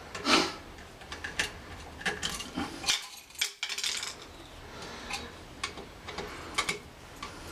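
Scattered small metal clicks and clinks of a screwdriver and screws being worked at a wall light switch, with one louder scrape about a third of a second in.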